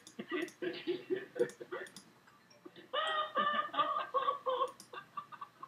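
High-pitched voice-like sounds played through a laptop speaker: a choppy run in the first two seconds, then a longer, held, squeaky cry about three seconds in.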